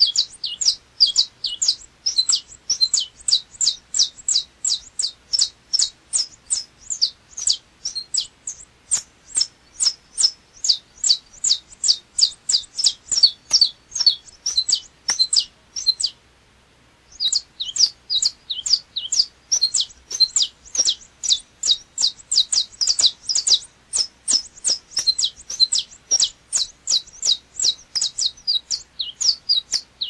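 Saffron finch singing: a long, fast run of sharp, high chirping notes, several a second, broken once by a pause of about a second about halfway through.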